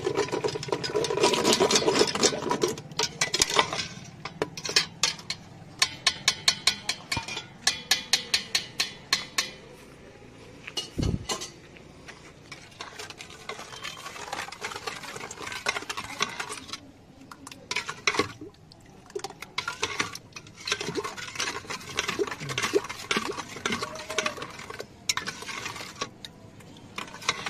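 Long steel ladles beating and stirring thick curd in a stainless steel pot, clinking against the metal in quick even strokes of about two to three a second. After about ten seconds it turns to softer stirring and scraping with occasional clinks. This is dahi being whipped smooth for lassi.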